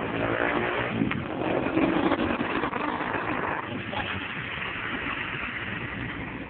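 Bus engine and road traffic noise, slowly fading, with voices mixed in.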